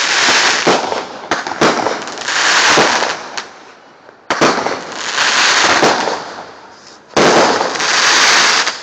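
Consumer fireworks going off: several sharp pops, and three loud bursts about a second and a half in, about four seconds in and about seven seconds in, each trailing off as a rushing hiss over a second or two.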